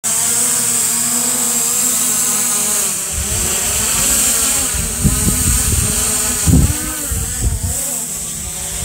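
SJRC F11S 4K Pro quadcopter's brushless motors and propellers buzzing in flight, the pitch wavering up and down as the drone wobbles, which the owner blames on dusty brushless motors. A few low gusts of wind hit the microphone about five to seven seconds in.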